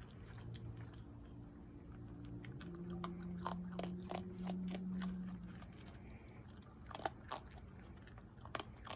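Raccoon biting and chewing dry cat food: a string of short, crisp crunches, thickest in the middle, with two sharper crunches about seven seconds in.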